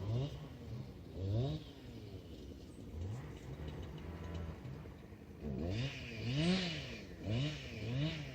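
A motor revving up and down in short, repeated surges, its pitch rising and falling with each one, with a quick run of surges in the last few seconds.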